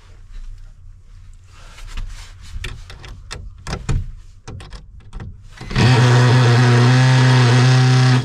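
A few knocks and clicks of handling, then a power drill runs at one steady speed for about two and a half seconds, starting and stopping abruptly.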